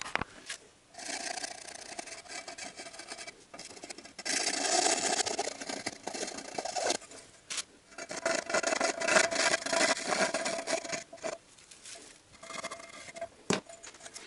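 Several stretches of rubbing and scraping, a second to three seconds each with short pauses between, as the Honda CVT oil pan and its old paper gasket are handled and wiped.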